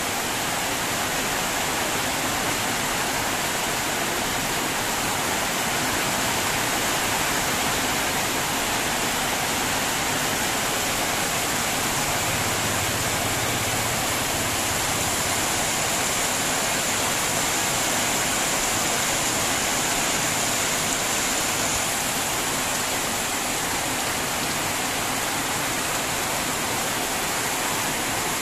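Heavy tropical downpour: a dense, steady hiss of rain falling hard, with no let-up.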